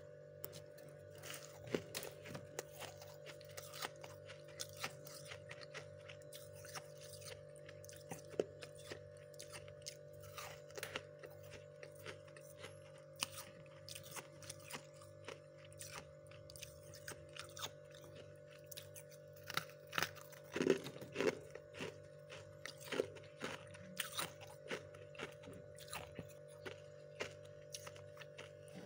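Thick, fluffy freezer frost crunching as it is dug into and squeezed by hand, in a run of irregular crisp crunches, busiest about twenty seconds in, over a steady hum.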